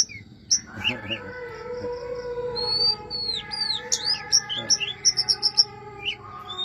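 Oriental magpie-robin (kacer) singing: a varied run of sweeping, slurred whistles that rise and fall, with a quick series of short repeated notes a little past the middle, over steady held lower tones.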